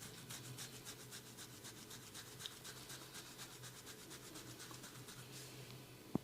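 Hands rubbing quickly over skin and hair in a head and ear massage, a fast run of strokes about six a second that fades out shortly before the end. Then comes one sharp knock, the loudest sound.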